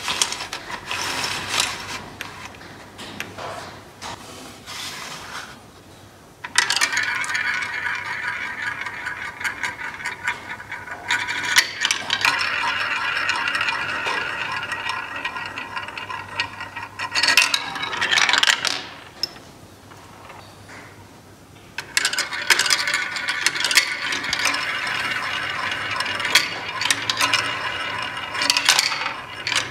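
Small balls rolling and clattering along the tracks of a sliding ball-drop toy, a dense stream of clicks and rattles. It starts abruptly about six seconds in, eases off for a couple of seconds near the twenty-second mark, then picks up again.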